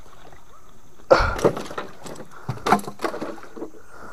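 A hooked hampala splashing at the side of a wooden boat and knocking against the hull as it is landed. The sound comes in two bursts, about a second in and again near three seconds.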